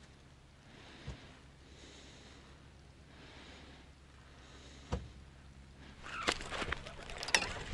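Close breathing, in and out about every second and a half, with a single sharp knock about five seconds in. From about six seconds in, a louder run of quick clicks and rattles sets in as a fish is fought on a bent rod.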